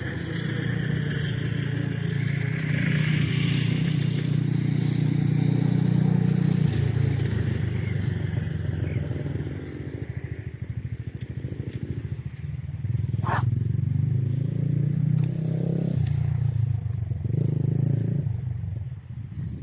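Strong wind buffeting the microphone: a loud, rough low rumble that swells and eases in gusts and drops away abruptly near the end. One brief sharp noise cuts through it about two-thirds of the way in.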